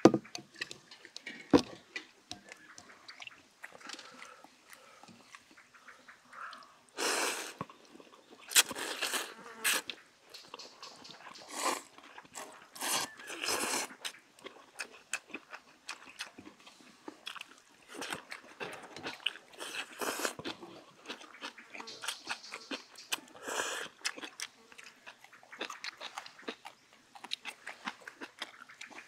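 Noodles being slurped and chewed, in several long noisy slurps, with chopsticks clicking against stainless steel bowls.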